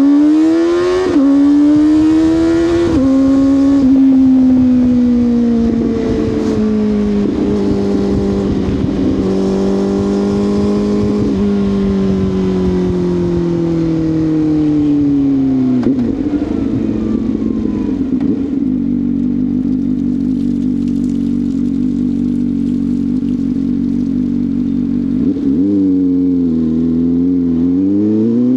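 CFMoto 500SR Voom's parallel-twin engine through an SC Project carbon slip-on exhaust, with the stock catalyst and box still fitted. It accelerates through a couple of upshifts and cruises, then slows down and idles for several seconds. Near the end it revs and pulls away again.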